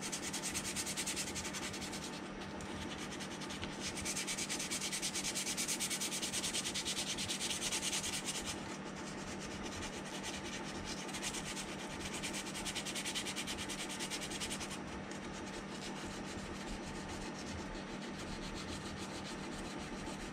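Sandpaper, 180 grit, rubbed quickly back and forth by hand over putty-filled seams on a plastic model hull, roughing off the excess putty. The rasping strokes are loudest during the first eight seconds and grow softer after that.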